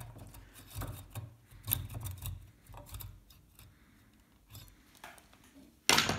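Coping saw cutting through a thin wooden dowel with short rasping strokes, several in the first three seconds, then dying away. A single sharp, loud knock comes just before the end.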